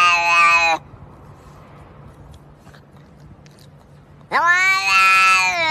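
A cat giving two long, drawn-out meows. The first, held at a steady pitch, ends under a second in. The second starts after about four seconds with a quick rise in pitch, then holds.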